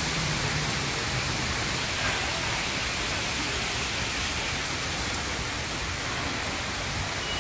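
Heavy rain falling, a steady even hiss with no distinct drops or other events standing out.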